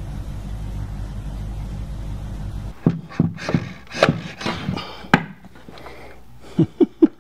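A low steady hum for the first few seconds, then irregular sharp knocks and clunks of a wooden table frame being handled during assembly, about a dozen of them, a few ringing briefly.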